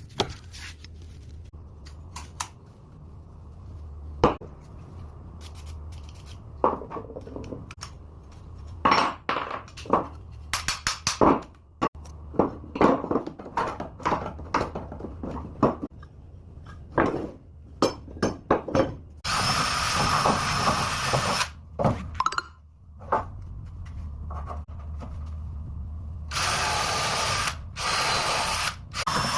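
Woodworking tools at work: repeated knocks and taps, with two bursts of a power tool running, the first about two seconds long, the second about three seconds and broken by short pauses, over a steady low hum.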